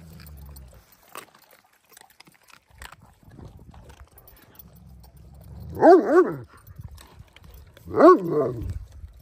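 Large shepherd dog giving two short, loud barking calls about two seconds apart, the first about six seconds in, each rising and then falling in pitch, while dogs feed on raw meat.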